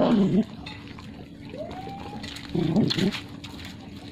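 Nursing puppies whimpering: a thin whine that rises and falls about one and a half seconds in, then a louder short cry a little past the middle.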